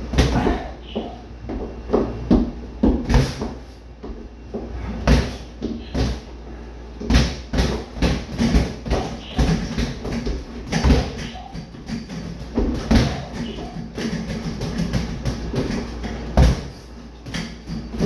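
Padded boxing gloves punching a freestanding punching bag and a reflex bag on a stand: irregular flurries of dull thuds, several a second at times, with short pauses between flurries.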